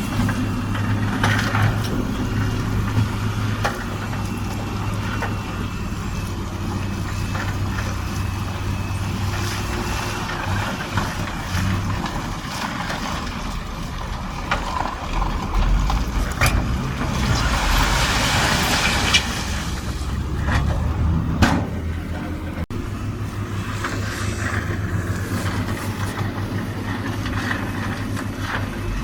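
Heavy diesel machinery running steadily at work on stone, with a few sharp knocks of rock and a brief burst of hissing about two-thirds of the way through.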